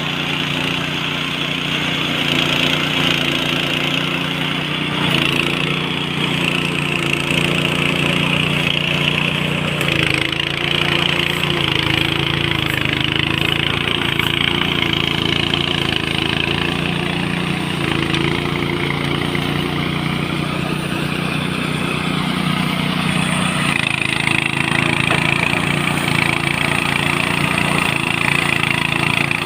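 A small engine running steadily with a strong rushing hiss over it, its pitch wavering slightly now and then.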